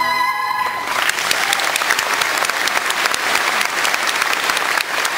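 A singer's final held note cuts off just under a second in, and an audience breaks into applause, clapping steadily.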